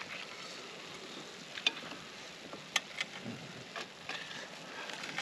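Roast potatoes sizzling in hot fat in a cast-iron pan. A fork clinks sharply against the pan a few times as they are picked out.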